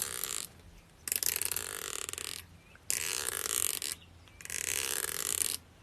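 The teeth of a comb being scraped with a fingernail: a rasping, ratchet-like run of rapid clicks, repeated in three long strokes of over a second each with short pauses between, after the tail of one more at the start.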